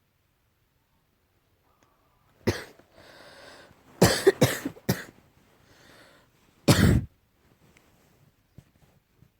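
A fit of coughing from an allergy. One cough is followed by a noisy breath, then three quick coughs in a row, another breath and one more cough.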